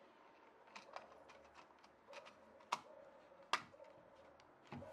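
Small scattered clicks and light knocks as a plastic clock movement is handled and pressed into a chiselled recess in a wooden board, with two sharper clicks a little past the middle.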